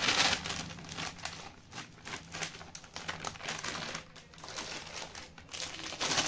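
Plastic packet of custard powder crinkling in the hands as it is tipped, squeezed and shaken, with powder pouring out into a basin of dry bait mix. Irregular rustling, loudest at the start and again near the end.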